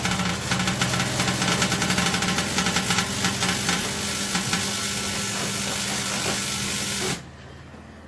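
Microwave oven running with its casing off: a steady electrical hum overlaid with dense crackling and sizzling, cutting off suddenly about seven seconds in. This is the firecracker-like noise the technician traces to the magnetron, whose magnet is coated in dirt.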